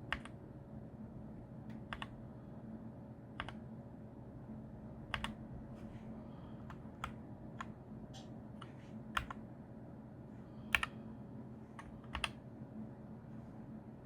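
Keys on a Keychron K8 mechanical keyboard pressed one at a time: about a dozen separate clicks spread irregularly, over a steady low hum.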